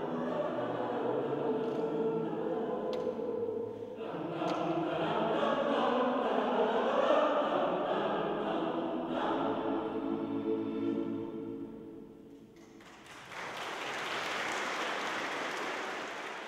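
Mixed choir singing unaccompanied, its last chord fading away about twelve seconds in. The audience then breaks into steady applause.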